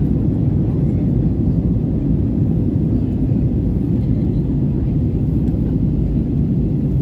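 Airbus A320neo airliner in flight: a steady low rumble of engine and airflow noise.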